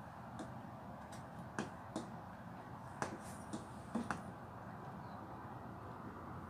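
A ladle clinking against the side of a stainless steel saucepan as it stirs hot agar-agar mixture to let the steam off before pouring: a scattering of short sharp clinks over the first four seconds, then only a faint steady hiss.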